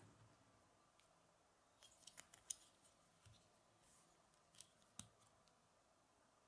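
Faint clicks of small plastic Lego bricks being handled and pressed together on a model: a quick cluster about two seconds in, then a few single clicks.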